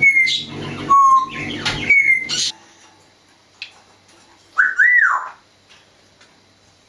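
African grey parrot whistling: several short, clear whistled notes in the first couple of seconds, then a single rising-and-falling whistle about five seconds in.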